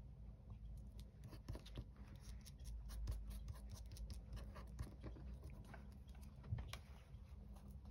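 Faint paper handling: a cut-out paper bird pressed and smoothed onto a card postcard on a cutting mat, with small scattered taps and rustles over a low background rumble.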